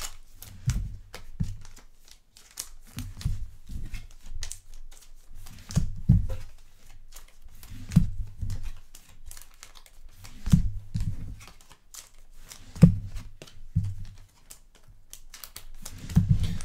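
Thin plastic card sleeves crinkling and rustling as trading cards are slid into them, with soft low thumps of handling against the table every second or two.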